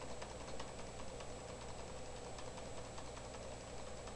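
Computer mouse button clicked over and over, several quick clicks a second, on a scroll arrow. Under the clicks is a steady low hum and a faint high whine.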